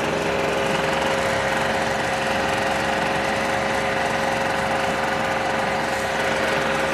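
Small two-stroke engine of a United Power GG950DC portable generator running steadily at a constant speed, with a steady tone over the engine noise. It is running unloaded while its engine speed is being adjusted.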